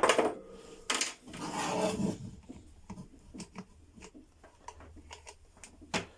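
A hair dryer's plastic housing being handled and taken apart: a sharp click at the start, a scraping rub about a second in, then scattered light clicks.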